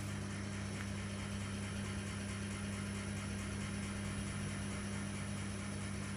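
Steady low electrical hum with a faint high whine over a constant noise, unchanging throughout.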